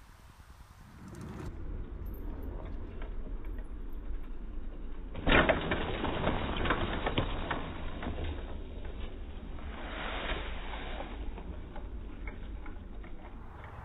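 Mountain bike ridden on a dirt jump trail: tyres on dirt and leaf litter with rattling and clicking from the bike. It is loudest from about five seconds in, as the bike passes close.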